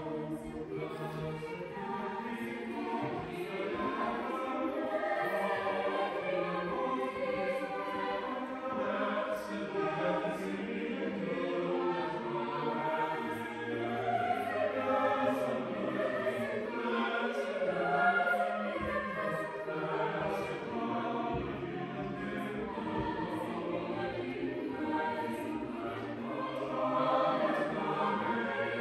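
Mixed-voice chamber choir of sopranos, altos, tenors and basses singing unaccompanied, the voices sustained and reverberant in a large stone church.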